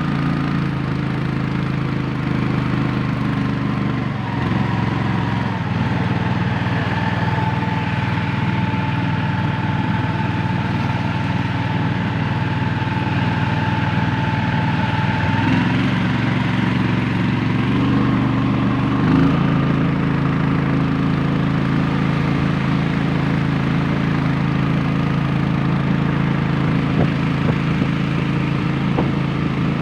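Small boat engine running steadily on the river, its note shifting slightly a few times.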